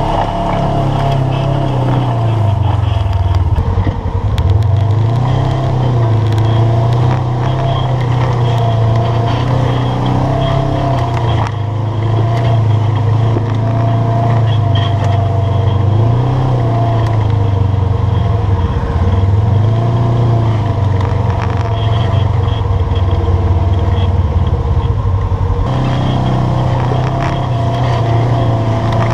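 UTV engine running at crawling speed over rock, its pitch rising and falling in slow waves with the throttle. Scattered knocks and clatter come from the vehicle working over the rough ground.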